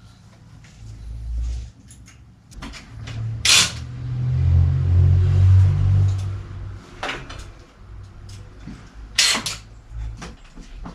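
A bicycle being handled and turned in a workshop repair stand: metal clanks and knocks, with sharp clacks about three and a half and nine seconds in and a low rumble for a few seconds in between.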